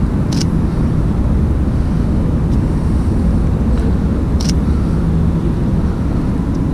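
Steady low rumble of city street traffic, with a few short, sharp clicks.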